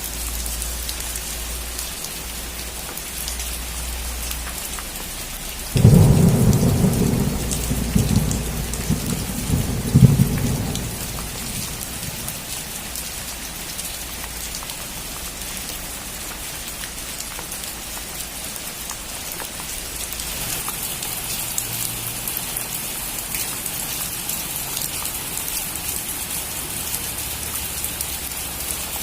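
Steady rain falling on a roof, with a sudden clap of thunder about six seconds in that rumbles on, cracks loudly again near ten seconds, then fades back into the rain.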